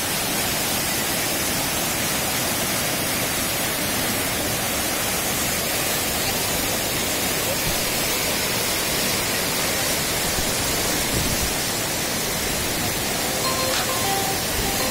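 Floodwater rushing through the breached gate of an earthen dam, a steady unbroken roar of churning water. Near the end, music begins over it.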